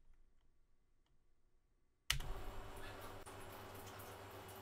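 Near silence for about two seconds, then light clicking over a steady low hum starts suddenly.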